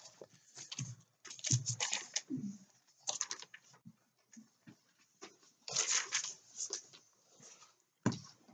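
Paper pages being leafed through and rustled by hand, in several irregular bursts of crinkling, as if searching for a passage in a Bible.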